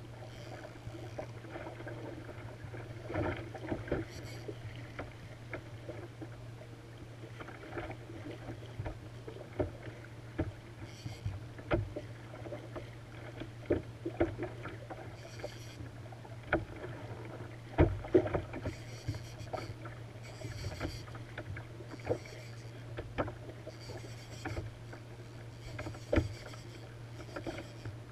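Water sloshing and slapping against a fishing kayak's hull, with irregular knocks and taps from the kayak and gear, over a steady low hum.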